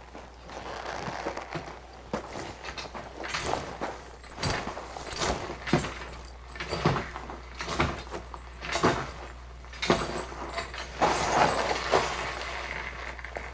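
Foley effects being made by handling props: an irregular run of sharp knocks, clicks and rattles, roughly one a second, over a light rustling noise.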